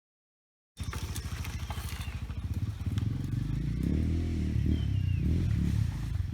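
A small engine running with a fast, even pulse, cutting in abruptly about a second in and getting louder about three seconds in.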